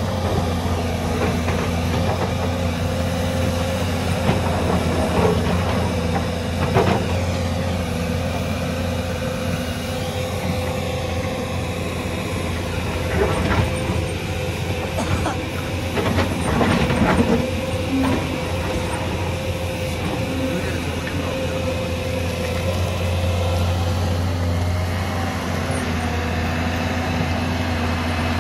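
Hyundai crawler excavator's diesel engine running steadily under load, with a steady whine over it. The bucket knocks and scrapes in rocky soil in short clattering bursts, about seven seconds in and twice more near the middle.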